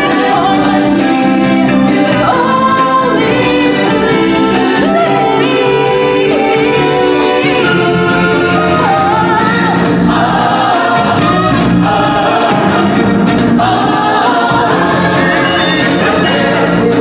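Live stage-show music with a choir of voices singing over the accompaniment.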